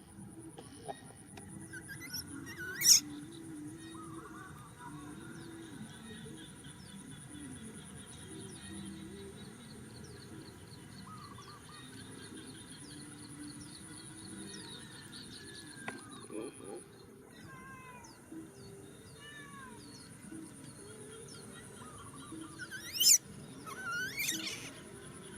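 Outdoor animal sounds: repeated bird chirps over a steady high insect hum, with a sharp, shrill rising squeal about three seconds in and two more near the end.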